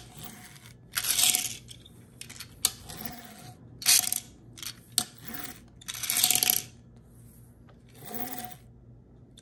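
Plastic Rumbler Lightning McQueen Happy Meal toy car rattling and clattering on a hard countertop as it is pushed back and let go, its wheel mechanism making it hop. About five short rattling bursts come a second or two apart, with a few sharp clicks between them.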